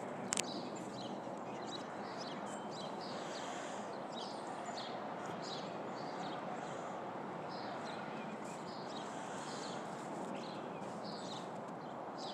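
Small birds chirping repeatedly over a steady background rush, in which an aircraft passing overhead is heard only faintly. A brief click sounds just after the start.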